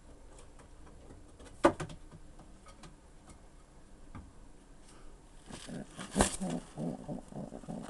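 Racing pigeons cooing, a low pulsing coo starting about five and a half seconds in, with two sharp knocks, one about a second and a half in and a louder one about six seconds in.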